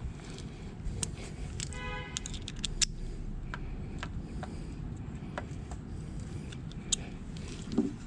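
Scattered light metallic clicks and clinks of hand tools working on a motorcycle's rear brake caliper, over a steady low background rumble. A brief pitched tone sounds about two seconds in.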